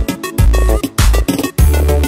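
Music: an instrumental stretch of a song, with heavy bass notes and drum hits on a steady beat.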